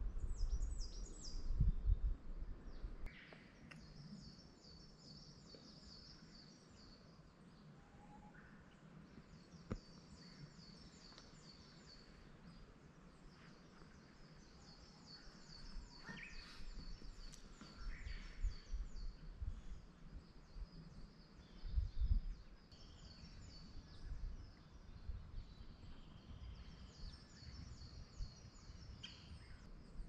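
A small songbird singing high, rapid trilled phrases, repeated in bouts with short pauses between them. Low rumbles sit under it, loudest in the first couple of seconds and again around the middle.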